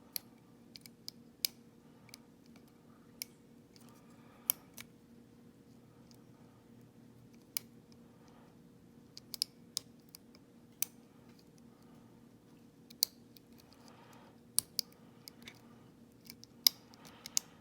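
Lock picks working inside a padlock's cylinder: irregular sharp metallic clicks and ticks, more of them near the end, over a faint steady hum. The lock is still being picked and has not yet opened.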